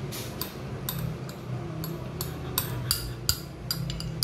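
Metal spoon scraping and tapping grated cheese out of a small ceramic bowl, a quick series of light clinks, over a steady low hum.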